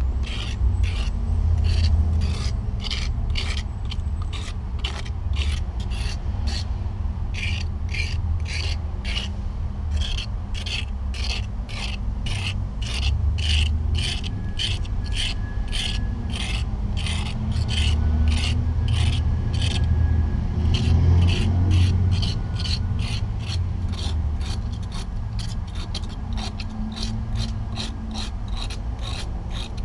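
Hand-held abrasive rubbed rapidly back and forth along a rusted cast iron water pipe, about two to three rasping strokes a second, scouring the rust off its surface. A steady low rumble runs underneath.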